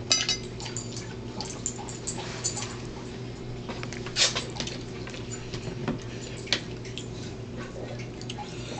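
Eating sounds at close range: chewing and lip-smacking, with many small clicks, the loudest about four seconds in, and a brief high squeak right at the start. A steady low hum runs underneath.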